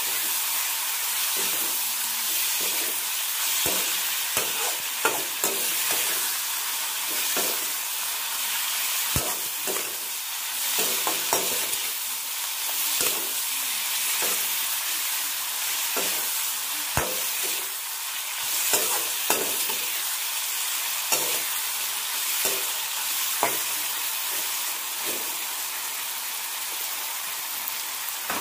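Vegetable strips sizzling in hot oil in a metal wok, with a slotted metal spatula scraping and knocking against the pan at irregular moments as they are stirred. The knocks thin out near the end, leaving mostly the steady sizzle.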